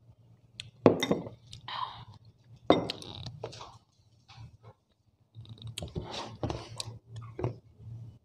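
A ceramic bowl and spoon clink sharply twice, about a second in and again near three seconds, followed by a busier stretch of small clicks and eating sounds.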